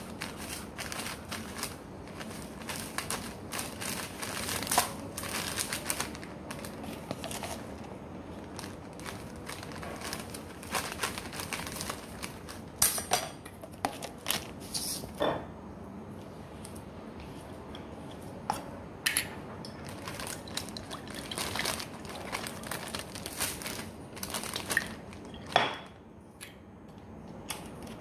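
Plastic zip-top bag crinkling and rustling as it is handled, with scattered sharp clicks and knocks.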